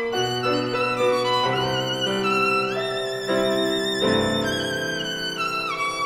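Background music: a violin melody of held notes with vibrato and some sliding pitch changes, over sustained lower accompaniment.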